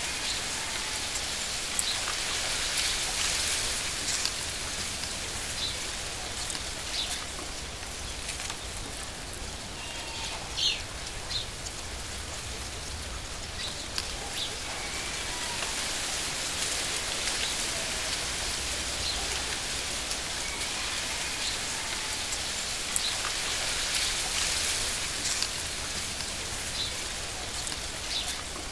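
Steady hiss of falling water like rain, with a few short bird chirps scattered through it.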